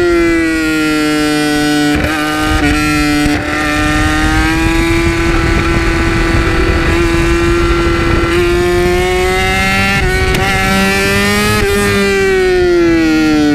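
2008 Yamaha R6's inline-four engine running through an Akrapovic exhaust, heard from the rider's seat: a high, steady engine note that sinks in pitch at the start, holds, climbs a little past the middle and falls away near the end. A few short clicks sound about two to three and a half seconds in.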